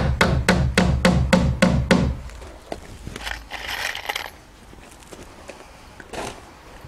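A hammer driving a nail through an LP SmartSide siding panel into the shed's wood framing, with quick ringing blows about three a second that stop about two seconds in.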